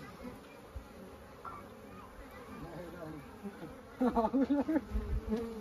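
Honeybees buzzing around the entrance hole of a traditional log hive, a low, wavering hum. About four seconds in, louder short pitched calls that rise and fall come in over the buzzing.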